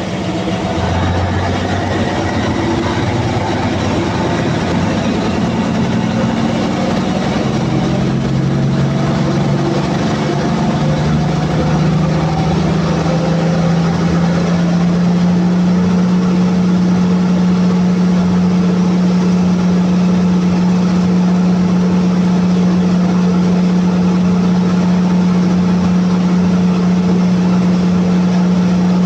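Cummins QST30 V12 diesel engine of a 1000 kW generator set, just started: it runs up from idle at about 900 rpm, its pitch rising over the first dozen seconds, then runs steadily at its rated speed of about 1800 rpm.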